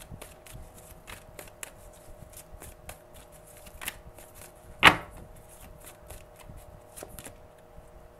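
A deck of tarot cards being shuffled by hand: a run of quick, light clicks and rustles, with one loud, sharp click about five seconds in.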